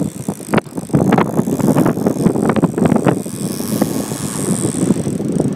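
Wind buffeting the microphone over the rush of rough sea water along a boat's hull, with many irregular knocks and slaps.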